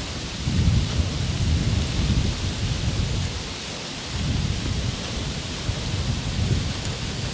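Wind buffeting the camera microphone in two long, uneven low rumbles over a steady hiss.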